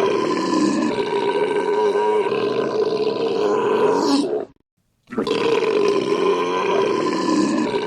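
A long, drawn-out human belch, held steady for several seconds at a loud, even level, cuts off about four and a half seconds in. After half a second of silence the same long belch starts again.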